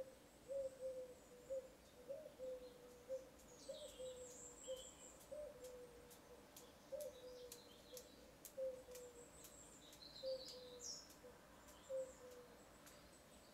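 Faint, short squeaks repeating about once a second, with light ticks and a few high chirps, as a 2BA die is turned by hand onto a stainless steel piston rod held in the lathe chuck.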